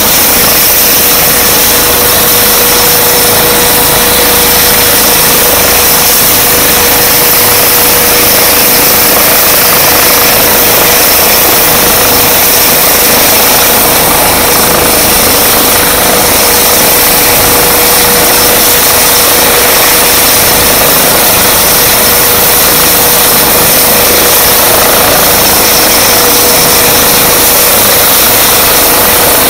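Eurocopter EC135 P2 helicopter's twin turbine engines and rotor running steadily while it sits on the ground before takeoff: a steady turbine whine over loud, even rushing noise.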